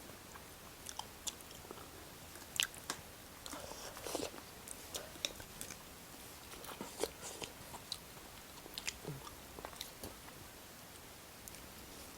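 Close-up eating sounds of fried chicken being chewed: quiet, irregular crunches, smacks and clicks of biting and chewing.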